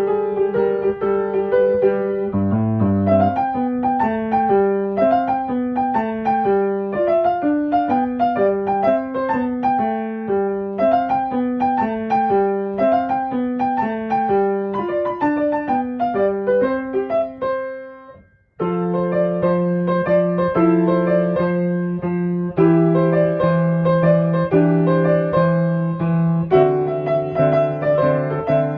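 Background piano music, a gentle melody of separate notes. It fades out about two-thirds of the way through and starts again after a brief gap.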